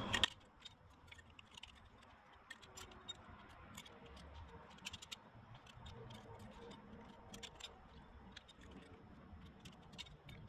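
Faint, scattered light clicks and taps of steel and friction clutch plates being slid one by one onto the hub inside a motorcycle clutch basket.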